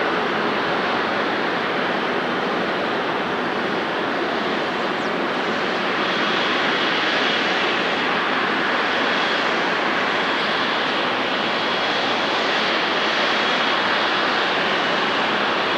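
Jet airliner engines running, a steady loud rush with a faint high whine joining about six seconds in.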